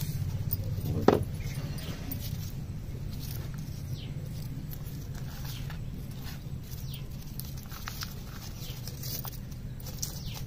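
Crumbly cow and buffalo dung manure tipped from a bucket into a plant pot and patted and spread over the soil by hand: soft rustling and pattering, with one sharp knock about a second in. A steady low hum runs underneath.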